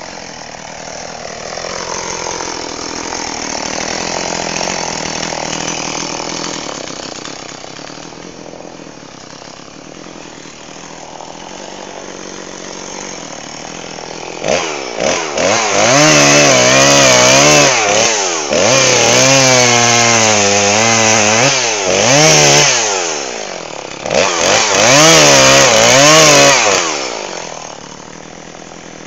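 Jonsered chainsaw engine run hard in three long cuts into wood from about halfway through, its pitch wavering as the chain bites and loads up. Before that there is a quieter, steadier engine sound.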